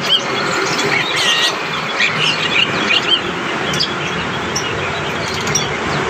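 Caged birds chirping: many short chirps and quick whistles, thickest in the first half and thinning toward the end, over a steady hiss of background noise.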